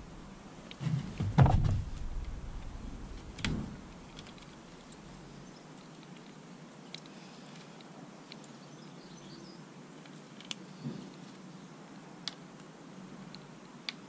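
Knocks and clicks of hand tools and parts being handled during work on a motorbike, loudest in a short cluster about a second and a half in, another knock at about three and a half seconds, then a few light ticks.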